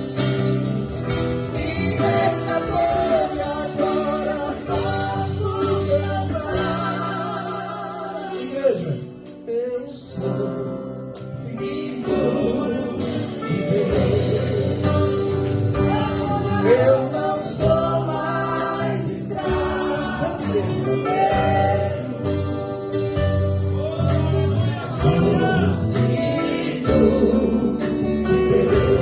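Gospel group singing a song together, with guitar accompaniment and a steady bass line. The music thins out briefly about ten seconds in before the singing picks up again.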